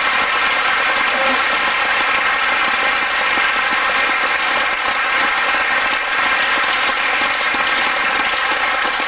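Loud, steady applause from a large audience of children.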